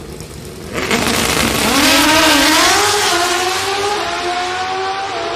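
Two Pro Stock drag-racing motorcycles launching from the starting line at full throttle, starting abruptly about a second in. The engine pitch climbs with a couple of brief drops at gear changes, then holds high and slowly fades as the bikes pull away down the track.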